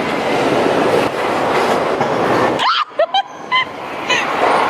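Ride noise heard from aboard a moving theme-park roller coaster: the train rolling along its track with the rush of wind, dipping sharply for a moment a little over halfway through.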